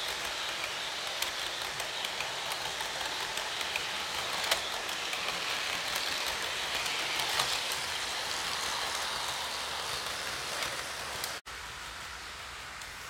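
HO scale model train's double-deck passenger cars rolling past close by: a steady rushing rattle of metal wheels on the track with scattered sharp clicks, loudest around the middle. About eleven seconds in the sound drops suddenly to a fainter rolling hiss.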